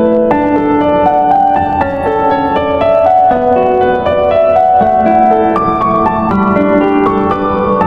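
Background music: a gentle piano melody with held notes.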